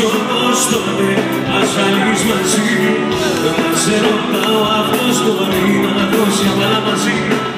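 Live band music with keyboard, electric guitar and drums while a male singer sings a Greek pop song into a microphone, heard through a phone's microphone from the audience.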